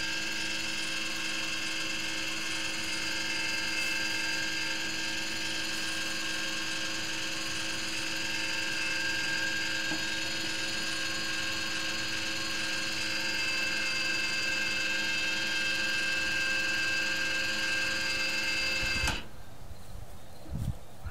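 Electric door-opener motor, run through an H-bridge controller, pulling a plywood chicken-coop door up its track on a cord. It makes a steady whine with several fixed tones and cuts off suddenly near the end as the door reaches the open position.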